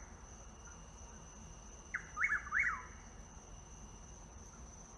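Chuck-will's-widow singing once about two seconds in: a short first note, then quick loud notes, the last sliding down in pitch. The next song begins right at the end.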